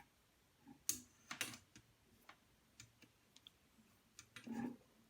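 Faint handling noises: a sharp click about a second in, another half a second later, a few faint ticks, and a short rustle near the end.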